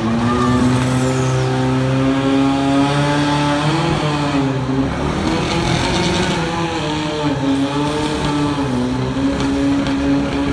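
Fire-sport pump engine running at high revs, driving water through the charged attack hoses. Its pitch dips and recovers a couple of times as the load changes.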